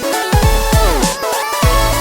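Background electronic music with a heavy beat and falling, sliding synth tones.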